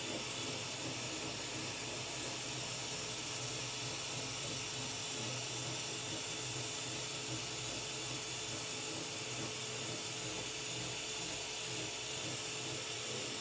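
Power tool spinning a wire wheel, running steadily with a high whine as it grinds down Bondo body filler on a car panel.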